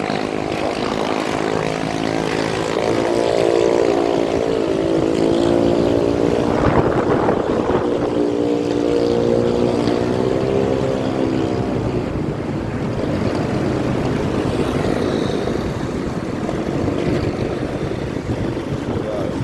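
A vehicle engine running under way, its pitch rising and falling as speed changes, over steady wind and road noise.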